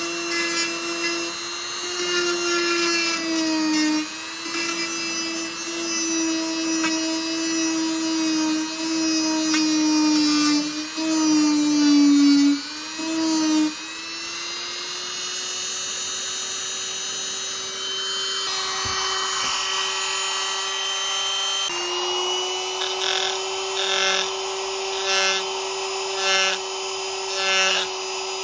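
Handheld rotary tool with a sanding drum grinding a small steel knife blade: a steady high motor whine that sags in pitch when the metal is pressed against the drum. In the last few seconds, a regular pulsing of grinding strokes a little more than once a second.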